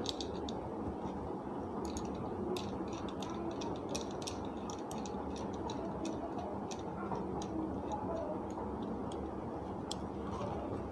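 Scattered light metallic clicks and ticks as a mixer grinder motor is bolted back together by hand and with a screwdriver, over steady background noise.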